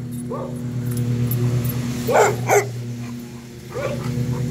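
A dog barking in short barks, the loudest two close together about two seconds in, over the steady hum of a running lawnmower engine.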